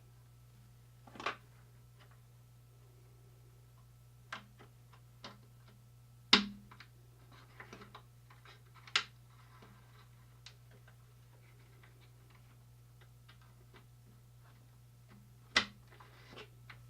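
Scattered clicks and knocks of hands handling the speaker wiring and fast-connect terminals in a Fender Twin Reverb amp cabinet, with two sharper knocks near the middle. A steady low hum runs underneath.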